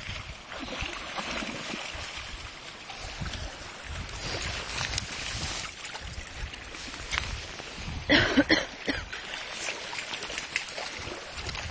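Shallow water lapping and splashing around dogs wading at the shore, with a short louder burst of noise about eight seconds in.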